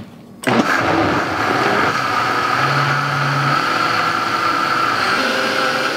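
High-speed countertop blender starting up about half a second in and then running steadily with a high whine, blending soaked chickpeas and water into a smooth chickpea milk.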